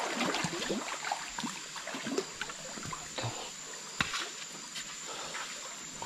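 Feet wading through shin-deep water, with irregular small splashes over a steady rush of running water.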